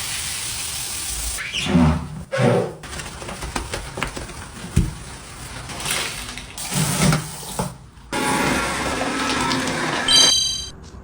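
Household cleaning sounds: running water hissing into a sink, with knocks and scrubbing in between. A short bright chime sounds near the end.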